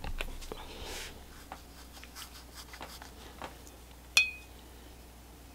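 Faint scratching and small clicks of a watercolour brush working on paper. About four seconds in, the brush strikes the glass rinse-water jar once with a sharp clink that rings briefly.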